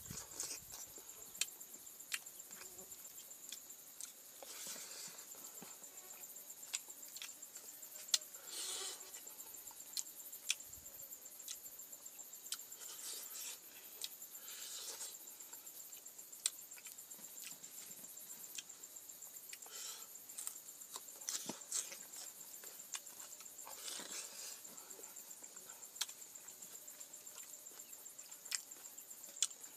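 Close-up eating sounds: chewing, lip smacks and wet clicks, scattered and irregular, from someone eating with their fingers. Under them runs a steady high-pitched insect drone.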